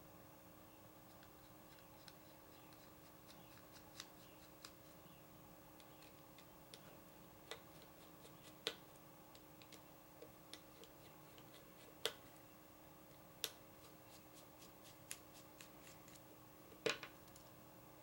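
Sparse small clicks and taps of folding-knife parts and tiny screws being handled and worked with a small driver, over a faint steady hum. The loudest clicks come about twelve and seventeen seconds in.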